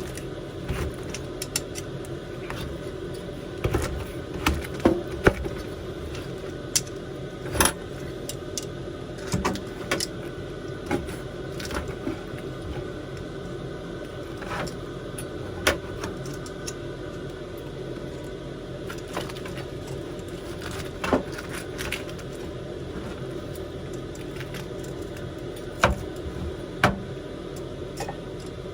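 Irregular light clicks and knocks, a few loud ones among many faint ones, over a steady low hum.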